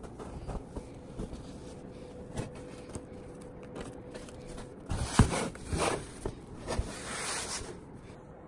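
Adhesive tape being stuck down and rubbed flat with the fingers: light crackling and rubbing, then a run of louder ripping, rubbing strokes from about five seconds in.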